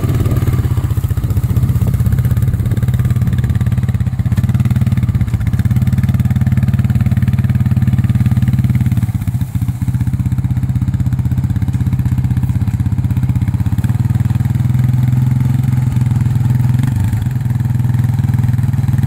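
Honda ATV engine running at low, steady revs as the quad is ridden slowly over grass, with a brief drop in level about nine seconds in.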